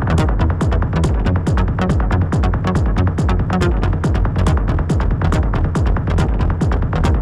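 Background electronic dance music with a fast, steady beat and heavy bass.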